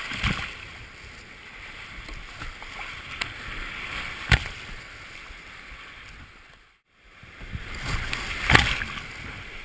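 Whitewater rushing and splashing over a creek kayak's deck, heard from a deck-mounted camera, with sharp splashes and strikes from paddle strokes hitting the water. The sound drops out for a moment about seven seconds in, then a big splash comes back loudly.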